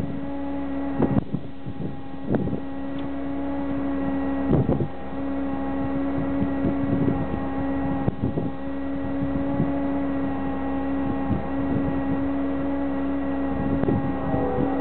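Steady, unchanging hum of an idling engine, with wind buffeting the microphone and a few brief knocks.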